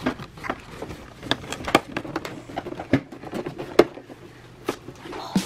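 A cardboard toy box being opened and handled: irregular short clicks, taps and scrapes of the cardboard flaps and insert, with a few sharper knocks.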